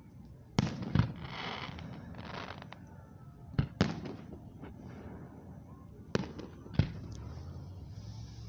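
Aerial fireworks shells bursting: six sharp bangs, coming in three close pairs, with a second of hissing after the first pair.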